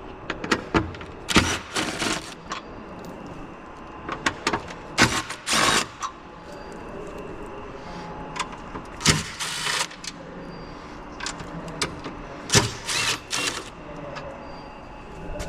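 Metal hand tools on bolts: short bursts of clicking and rasping in about four groups a few seconds apart, as Torx bolts on a car's front end are worked loose.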